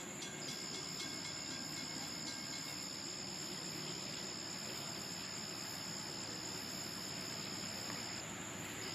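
Night insects trilling in two steady high-pitched tones, the lower one briefly stopping near the end, over the low, even rumble of a distant train.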